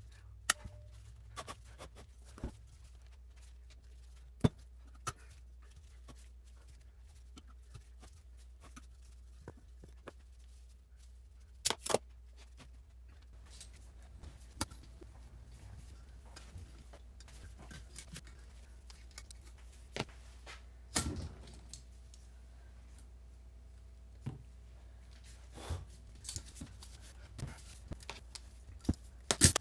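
Irregular metallic clicks, clinks and knocks as valve springs, retainers and collets are taken off a classic Mini 1275 cylinder head with a valve spring compressor, and parts are set down on the bench. There are a dozen or so sharp clicks with gaps between them, over a faint steady low hum.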